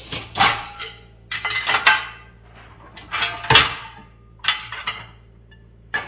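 Stainless-steel plates, bowls and pots clinking and clattering against each other and the dishwasher's wire rack as they are loaded into the lower rack. There are several separate bursts of clatter with short pauses between them, the loudest about three and a half seconds in.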